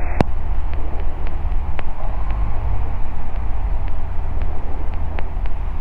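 A light aircraft's engine and propeller drone steadily in flight with a rush of wind over the microphone. There is one sharp click just after the start and faint light ticks scattered through.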